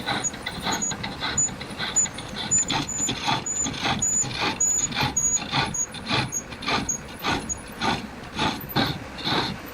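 Repeated scraping or rasping strokes on metal, about two a second, many with a brief high squeak: a hand tool working metal.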